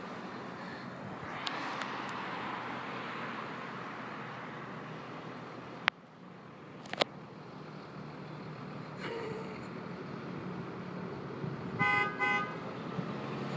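School bus horn honking twice in quick succession near the end, over steady traffic and engine rumble; two sharp clicks come about halfway through.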